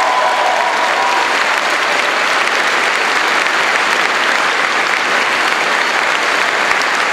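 Audience applauding, steady clapping that holds at an even level throughout.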